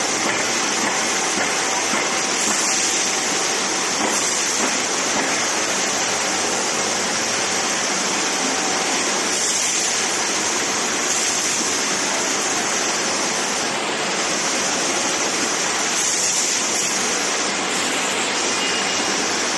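Glass-lid hole-drilling machine running: a steady rushing hiss like spraying water, with a faint steady hum under it.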